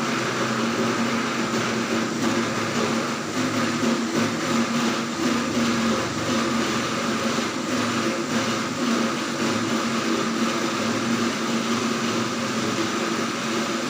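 Electric mixer grinder running steadily at full speed, blending boiled kidney beans with onion, carrot and a little water into a smooth paste.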